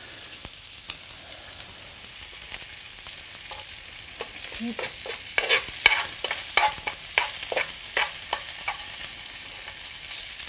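Chopped bacon sizzling as it fries in its own rendered fat in a frying pan. From about halfway through, a metal spoon stirs it, with repeated sharp clicks and scrapes against the pan.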